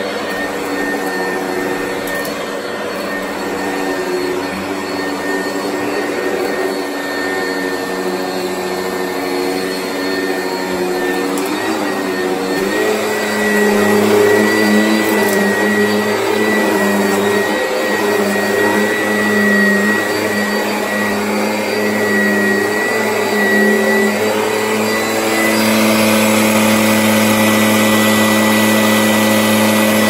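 Oreck upright vacuum cleaner running steadily as it is pushed over carpet: a motor hum with a thin high whine. About twelve seconds in a lower hum joins and it grows a little louder.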